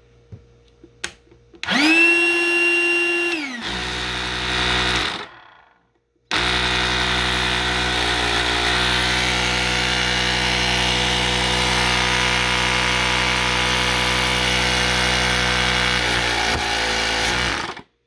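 Ryobi P731 18-volt inflator's compressor pump running after a rebuild. A few light clicks, then a rising whine as it starts and about three seconds of running. It cuts out, restarts about a second later, runs steadily for about eleven seconds, then cuts off again: pumping now, but cutting off.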